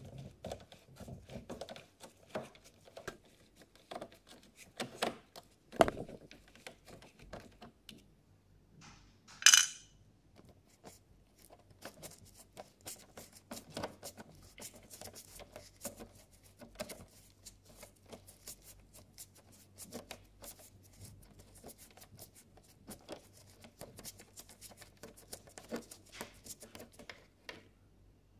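Hand screwdriver turning screws out of the casing of a 1979 National mini TV: faint ticks, clicks and scrapes of the bit in the screw heads. There is a louder knock about six seconds in and a short bright clatter about nine and a half seconds in.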